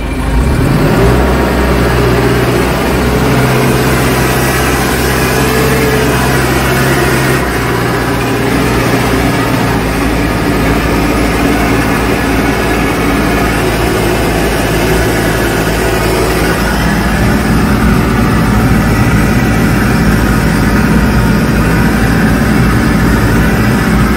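McCormick C100 Max tractor engine running steadily under load while pulling a five-furrow reversible plough through the soil, heard from inside the cab. The engine note rises about a second in, then holds.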